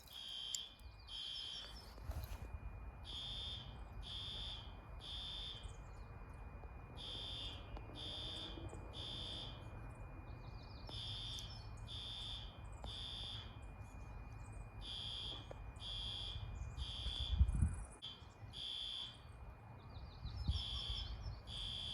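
Fire alarm horns sounding the temporal-3 evacuation pattern: three high beeps, a pause, then three again, repeating about every four seconds. A low rumble runs underneath, and there is a single bump about three-quarters of the way through.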